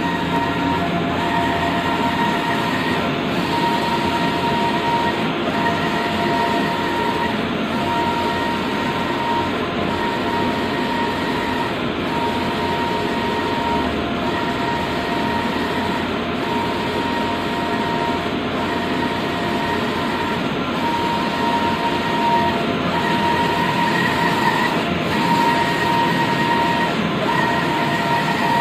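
Stratojet Hawk wide-format inkjet printer running a print job: a steady mechanical whir, with a whining tone that breaks off and resumes about every second as the print-head carriage sweeps back and forth.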